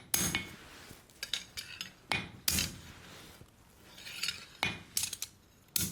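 Hammer tapping a steel knife blade on an anvil to re-straighten it: a handful of irregular light strikes and metallic clinks, some with a short ring, and a few quick blows close together near the end.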